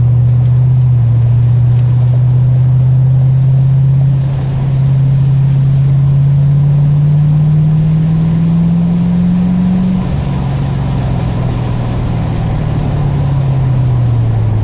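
C4 Corvette's V8 engine heard from inside the cabin under hard acceleration, its pitch climbing steadily for several seconds. The pitch drops suddenly about ten seconds in and falls further near the end.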